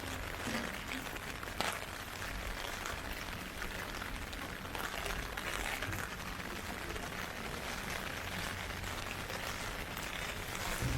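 Heavy typhoon rain falling: a steady hiss of rain with scattered individual drop hits.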